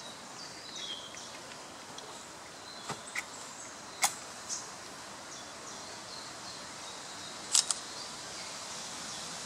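A few sharp clicks and a scrape as a memorial candle is lit by hand and set into a stone grave niche, over faint birdsong in the trees.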